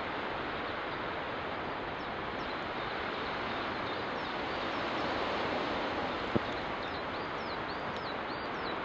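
Steady rushing of wind through the forest, with thin high bird chirps starting a couple of seconds in and growing busier near the end. A single sharp pop from the campfire comes about six seconds in.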